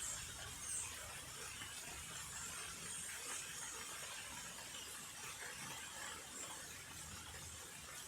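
Steady hiss of rain falling, with a few faint, brief high chirps.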